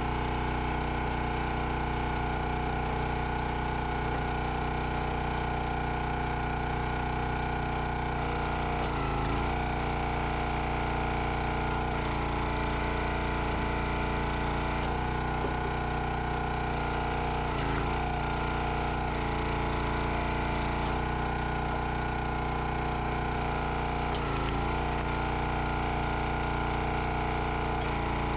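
Small gas engine of a 25-ton CountyLine log splitter running steadily, its note dipping briefly about four times as the hydraulic ram is worked through the firewood.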